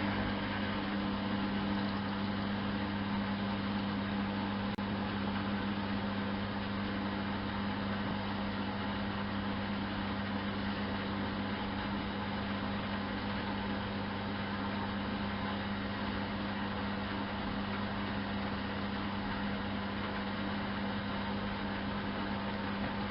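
Miele Softtronic W 204 front-loading washing machine running mid-program: a steady, even hum with a constant low tone under a broad whirr. A slightly higher tone drops out about a second and a half in.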